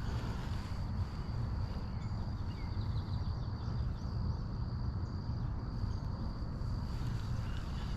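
Outdoor pond-bank ambience: a steady low rumble of wind on the microphone, with faint short bird chirps and a thin steady high tone in the background.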